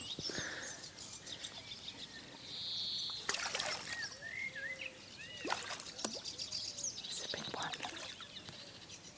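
Small birds chirping, with a few brief splashes as a hooked chub fights at the surface.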